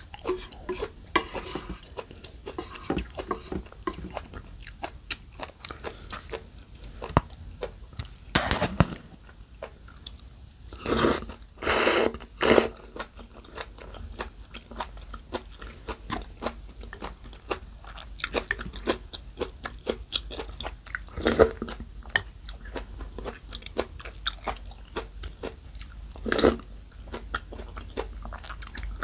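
Close-up chewing of spicy cold noodles with crisp bean sprouts and young radish: many small crunches and mouth clicks. A few louder bursts stand out, with a cluster of three about eleven to thirteen seconds in.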